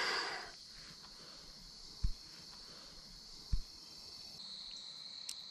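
A steady, high-pitched chorus of insects chirring along a creek. A brief splash of water at the start as a released smallmouth bass swims off, and two dull knocks a second and a half apart in the middle.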